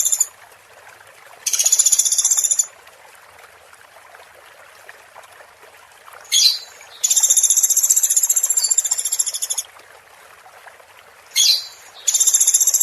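Songbird calling in repeated high, buzzy trills, each lasting one to two and a half seconds, with a short rising note just before two of them, over a faint steady hiss.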